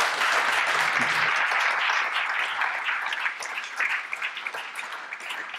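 Audience applauding, loudest at first and dying away over the last couple of seconds.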